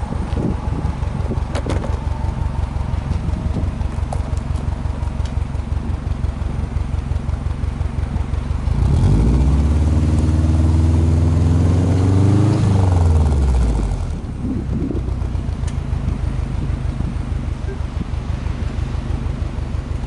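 Subaru Impreza WRX STi's turbocharged flat-four engine idling with an even, pulsing exhaust note at the tailpipe. About nine seconds in it is revved up in neutral and held at raised revs for about four seconds, climbing once more briefly. It then drops back to idle.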